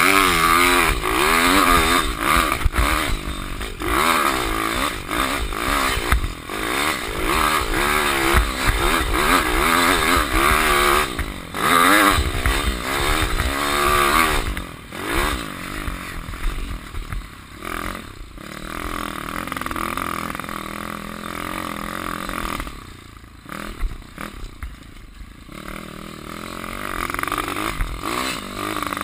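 Pitpro pit bike's T-Rex 150 cc engine revving up and down hard as it is ridden around a dirt track, with wind rushing over a helmet-mounted microphone. Partway through the throttle mostly closes and the engine goes quieter for a long stretch, picking up again near the end.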